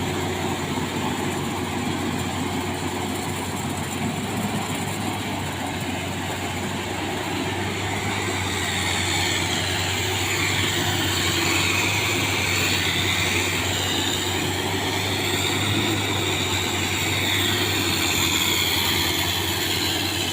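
Combine harvester running steadily, with a high whine that wavers in pitch coming in about eight seconds in.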